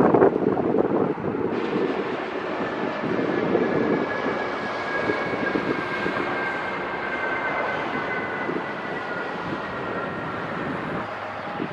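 Jet engines of military aircraft flying past low overhead: a steady roar with a high whine that slowly falls in pitch as they pass.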